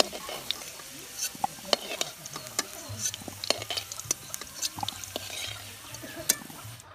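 Potatoes sizzling in hot oil in an aluminium kadai, with frequent sharp clinks and scrapes as a long metal spoon works round the pan and drops fried potatoes into a steel bowl.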